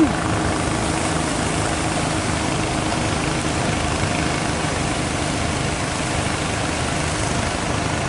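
Steady drone of a fishing boat's engine running over the wash of breaking surf, with a brief falling sound at the very start.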